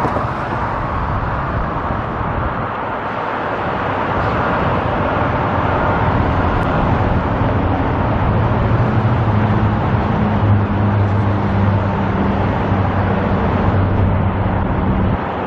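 Road traffic noise, with one vehicle's engine hum growing louder through the second half and fading near the end.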